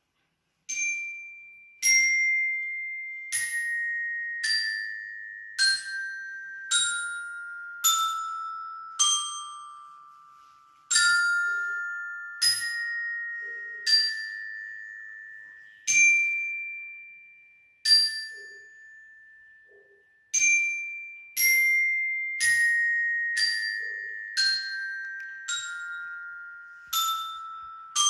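Glockenspiel played slowly with mallets: single struck notes, about one a second with a few short pauses, each ringing out. The tune steps down the scale note by note, then climbs back and steps down again.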